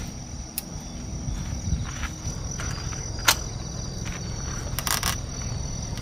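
Night insects trilling steadily, with a few sharp clicks of metal clasps being undone on a roof-mounted awning case. The loudest click comes about halfway through, and a short run of clicks follows near the end.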